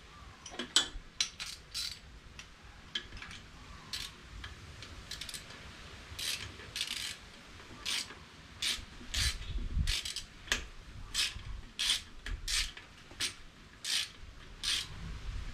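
Hand ratchet with an Allen socket working a bolt on a small-block Chevy intake manifold: a run of short ratcheting strokes, sparse at first and then about two a second through the second half.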